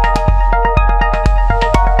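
Electronic background music: a steady kick-drum beat about twice a second under held synthesizer notes.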